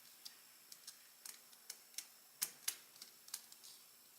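Small, irregular metal clicks and ticks as a T8 Torx driver works the pocket-clip screws out of a folding knife's back spacer, about a dozen in all, with two louder clicks a little past the middle.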